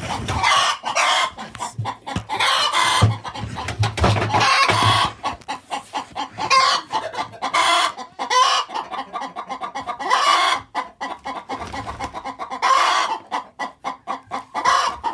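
Several chickens clucking rapidly, broken by a handful of longer, louder squawking calls.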